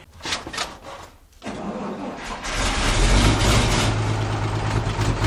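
Vintage REO fire truck's engine being cranked and catching about a second and a half in, then settling into a steady idle.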